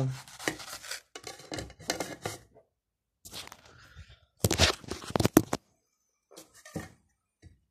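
Kitchen knife cutting through a raw onion on a plate, a string of short crunchy cuts. A cluster of louder knocks comes about halfway through.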